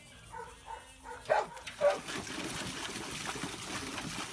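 A dog splashing water in a metal bowl, a steady sloshing and spattering that sets in about two seconds in. Just before it, two short barks about a second and a half in.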